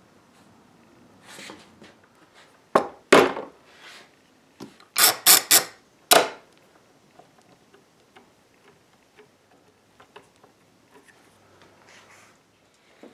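Metal bar clamps clanking and clicking as they are set and tightened over a freshly glued wood patch. Several sharp clanks come between about three and six seconds in, with light handling sounds around them.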